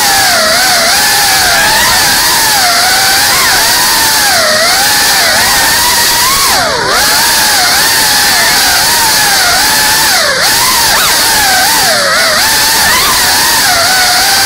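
GEPRC Cinelog 35 cinewhoop's brushless motors and ducted propellers whining in flight, the pitch constantly rising and falling with throttle over a steady hiss. About seven seconds in the pitch dips sharply, then climbs back.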